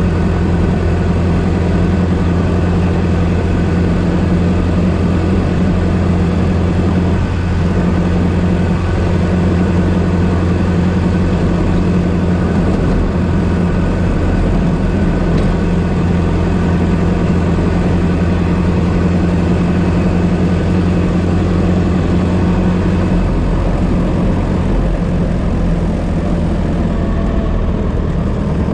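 1926 Ford Model T's four-cylinder engine running steadily while the car is driven, a low, even engine note with no change in speed.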